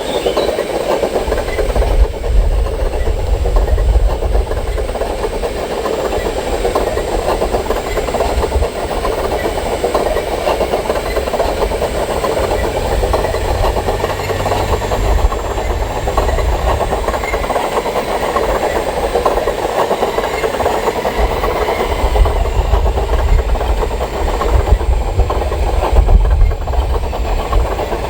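Radio-controlled construction models running steadily, their motors and hydraulics making a continuous mechanical whirr with a low rumble that comes and goes.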